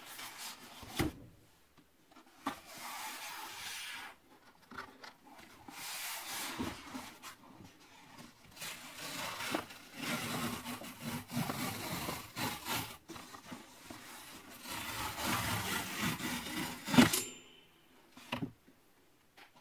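Cardboard mailer being torn open along its tear strip: several rasping tearing stretches of a second or a few seconds each, with handling taps and a sharp knock near the end, the loudest sound.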